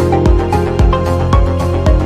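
Background music with a steady electronic beat, about two beats a second, over a bass line and a simple melody.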